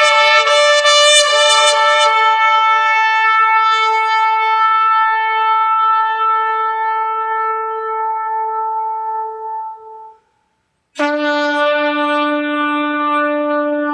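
Recorded trumpet-like horn blasts played back: one long held note that fades away about ten seconds in, then after a short break a second, lower note starts and holds.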